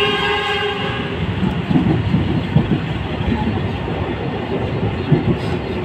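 Passenger train running along the track, heard from inside the carriage: a steady rumble with irregular knocks from the wheels on the rail. A held horn-like tone carries over from just before and stops about a second in.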